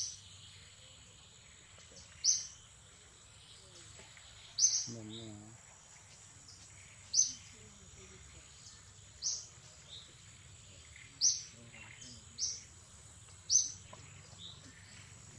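A bird repeating one short, sharp, high-pitched call about every two seconds, over a faint steady high whine.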